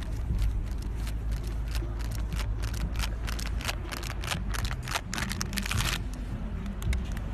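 Wind buffeting the microphone outdoors, a steady low rumble. From about a second and a half to six seconds in comes a quick run of sharp clicks and rattles.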